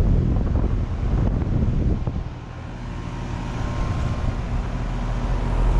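2016 Amana ASX14 central air conditioner condenser running just after start-up: the compressor hums and the Broad Ocean condenser fan motor blows air. A heavy rushing of air for about the first two seconds eases into a steadier hum.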